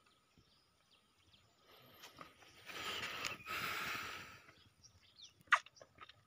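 A newborn buffalo calf suckling at its mother's udder, close to the microphone: two long snuffling breaths, then a few sharp wet sucking clicks near the end.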